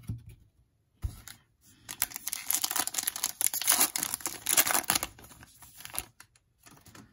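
Foil wrapper of a 2019 Panini Contenders football card pack being torn open and crinkled by hand: a crackling rustle that starts about two seconds in and stops about six seconds in.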